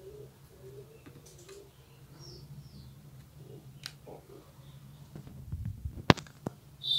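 Quiet room tone with a steady low hum and faint scattered ticks. About a second before the end comes low rubbing and a sharp click, then a smaller click, as the phone camera is handled. A brief high chirp follows at the very end.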